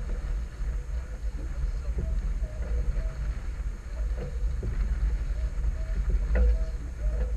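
Wind buffeting the microphone on the deck of a small sailboat under sail, a steady low rumble, with a few faint knocks from the boat, the clearest about six seconds in.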